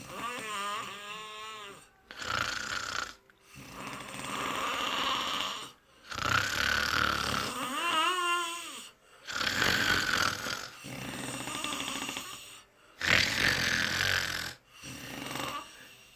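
Snoring: a steady run of noisy breaths, each one to two seconds long with short pauses between. Two of them carry a wavering whistle, one just at the start and one about eight seconds in.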